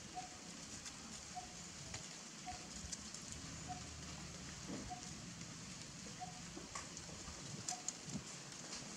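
Faint outdoor ambience: a steady hiss with scattered light crackles and rustles of dry leaves as macaques move about on them. A short faint note repeats about once a second throughout.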